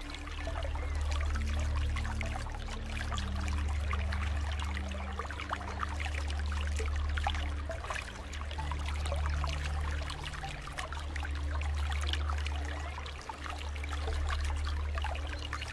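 Pool water trickling and splashing in gentle swells, over low held tones that step to a new pitch every second or two.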